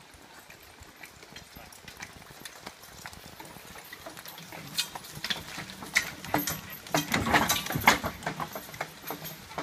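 Two horses walking on a dirt trail, hooves clip-clopping, with the harness and the wheeled log-loader trailer clattering behind them. The sound grows as the team passes close and is loudest about seven to eight seconds in.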